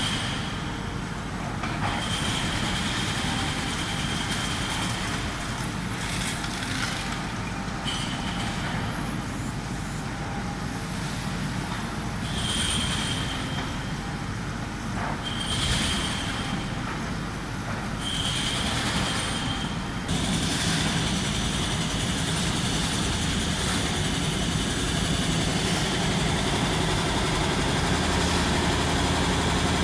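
Heavy construction machinery running steadily, with a high-pitched squeal that sounds several times for a second or a few seconds at a time and then holds continuously through the last third.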